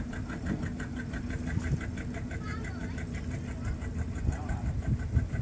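Boat engine running steadily: a low rumble with a fast, even clatter.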